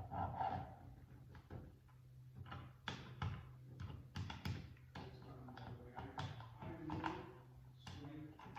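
Pencil scratching on drywall in a series of short irregular strokes, tracing the outline of an electrical box to mark it for cutting.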